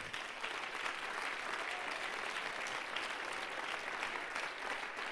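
A congregation applauding.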